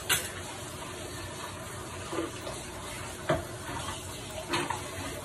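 Fish patties frying in olive oil in a nonstick pan: a steady sizzle with four short, sharper crackles spread through it.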